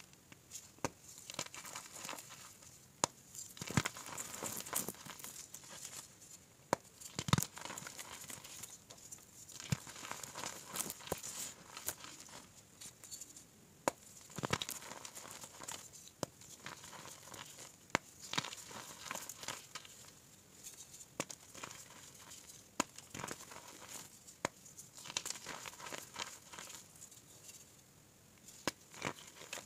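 Hands crushing and crumbling heart-shaped blocks of reformed gym chalk into loose powder: irregular dry crunches and sharp snaps, with softer powdery crumbling between them.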